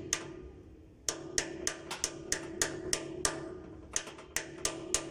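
Background music: a ticking beat of about three sharp clicks a second over a ringing note, with short breaks about a second in and near four seconds.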